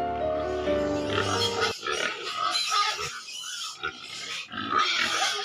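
Background music that cuts off suddenly just under two seconds in. Pigs, sows with their piglets, then make rapid, high-pitched squeals and grunts in quick irregular bursts.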